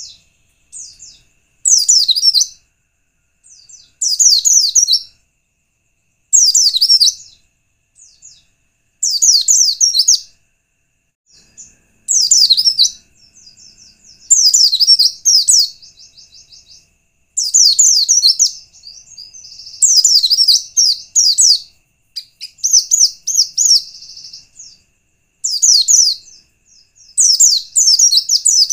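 White-eye (pleci) song: high, rapid twittering phrases about a second long, repeated every two to three seconds. It is a recorded lure call played to set other white-eyes singing.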